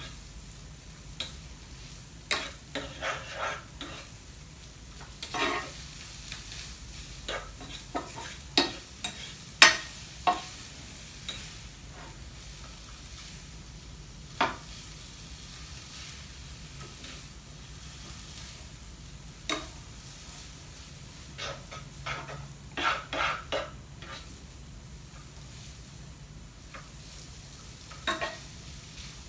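Food sizzling in a frying pan while a spatula stirs it, scraping and clacking against the pan at irregular intervals, sometimes several strokes in quick succession.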